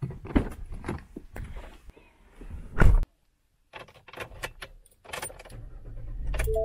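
Ford pickup truck door handle clicking, a series of knocks and a heavy thud as the door is worked, then keys jangling in the ignition. The engine starts about five seconds in and settles into a steady low idle.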